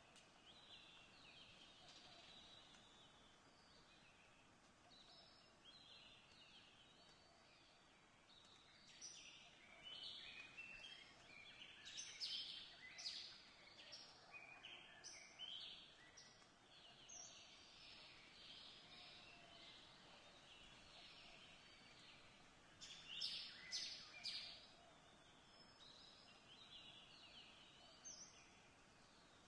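Faint birdsong: many short, high chirps and trills over a low background hiss, busiest about a third of the way in and again briefly later on.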